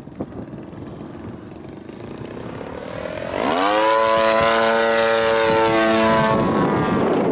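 Engine and propeller of a 1/3-scale Piper Super Cub RC plane revving up about three seconds in, then holding a steady, loud, pitched drone for about three seconds. Near the end the drone stops and wind noise buffets the microphone.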